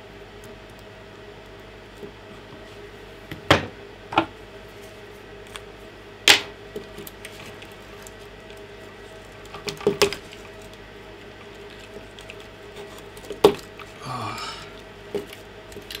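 Handling sounds at a workbench: about five sharp clicks and knocks spread through, as a magnifying glass and marker pen are set down on the tabletop and the wire connectors of a cordless vacuum's lithium-ion battery pack are handled. Under them runs a faint steady hum.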